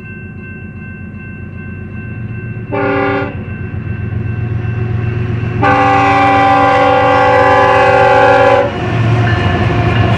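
Air horn of a BNSF GE ES44C4 diesel locomotive sounding a short multi-note blast about three seconds in, then a long blast from about halfway to near the end: the short-then-long close of a grade-crossing warning. Under it is the low rumble of the locomotives' diesel engines and wheels, growing as the train nears and loudest as the locomotives pass at the end.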